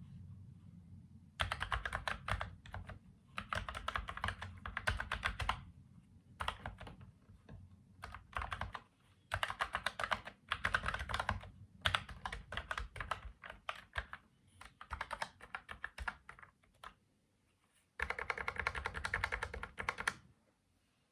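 Typing on a Logitech MX Mechanical Mini mechanical keyboard: runs of fast keystrokes lasting a second or two, broken by short pauses, with a longer pause shortly before the last run.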